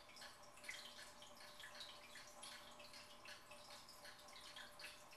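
Quiet aquarium water trickling and dripping: irregular small splashes and drips from the fish tank's water flow, over a faint steady hum.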